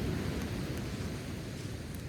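Steady rush of sea waves and wind on the microphone, with a few faint crackles from a driftwood campfire.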